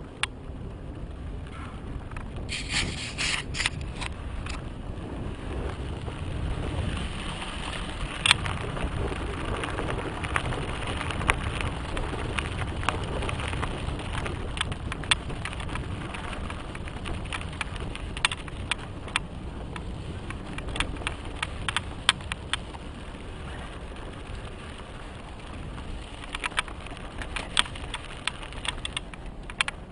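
Mountain bike rolling fast down a dry dirt trail: steady rumble of wind on the microphone and tyres on dirt, with sharp rattles and clicks from the bike over bumps and loose gravel, in thick clusters twice.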